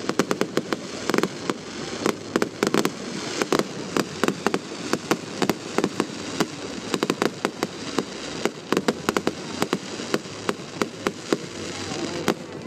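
Fireworks display: a rapid, irregular barrage of sharp bangs and crackles from many bursts overhead, over a constant crackling hiss.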